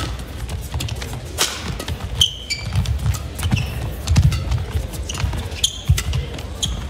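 Badminton rally: a string of sharp racket strikes on the shuttlecock, with players' court shoes squeaking and thudding on the court floor.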